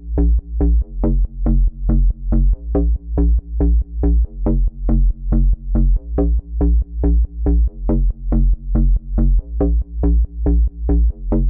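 Electronic dance music: a bass-heavy synthesizer pulsing evenly, a little over twice a second, with the treble filtered away.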